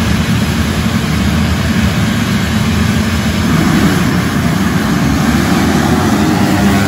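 Motocross bike engine running at fairly even revs.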